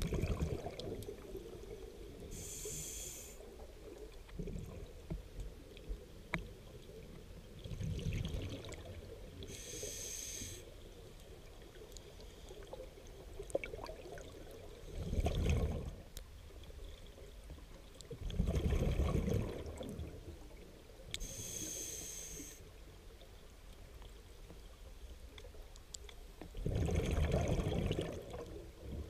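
Scuba diver breathing underwater through a regulator: a few short hissing inhales and louder rumbling bursts of exhaled bubbles, a breath every several seconds.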